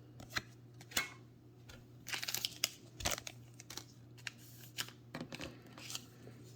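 Pokémon trading cards and their packaging being handled: scattered short rustles and crinkles, with a soft knock about three seconds in.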